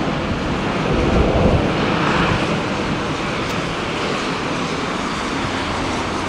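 Twin-engine jet airliner's engines heard from a distance as it rolls down a wet runway, a steady rushing roar.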